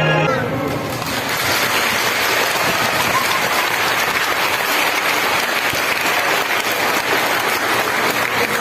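Choir music stops just as the sound opens, then a large audience applauds steadily.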